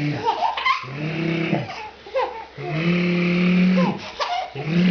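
A baby laughing in short squeals and giggles, between long drawn-out low voice sounds from an adult playing with him.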